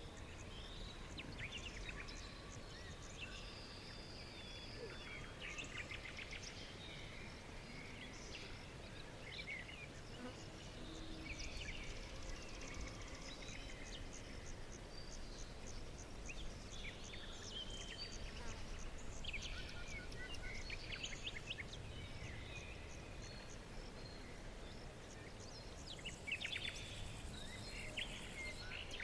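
Several wild birds chirping and trilling in short, overlapping phrases over a steady low background noise, with a busier burst of chirps near the end.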